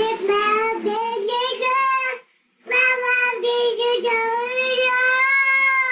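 A young child singing in a high, sustained voice: two long drawn-out phrases with a short pause about two seconds in.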